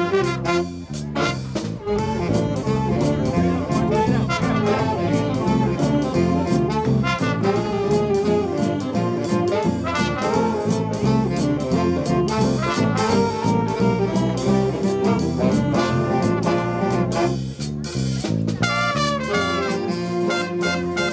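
A jazz band playing a swing tune: trumpets and trombones carry the melody over a steady drum beat. The music thins out briefly near the end.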